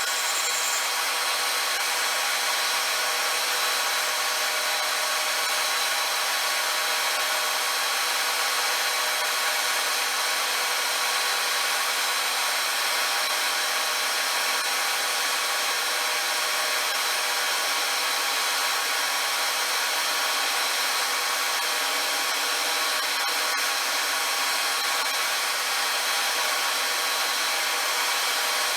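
Power tool in a machine shop running steadily, a loud even hissing whir with no pause, as it works steel.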